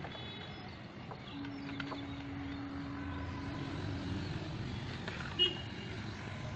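Background ambience: a steady low rumble, with a faint hum through the middle and one brief high chirp about five and a half seconds in.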